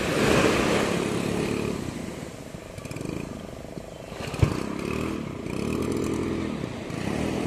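Yamaha outboard motor on a small fiber boat running, its pitch rising and falling over and over. Surf washes in the first second or so, and there is one sharp knock about four and a half seconds in.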